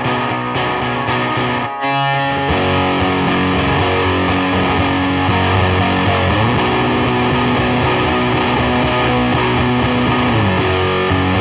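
Electric guitar played through a homemade one-knob Colorsound-style fuzz pedal with BC109 transistors, giving a dark, dirty fuzz. Quick repeated strummed chords for the first two seconds, then long sustained fuzzed chords with a slide up in pitch about halfway through and a slide down near the end.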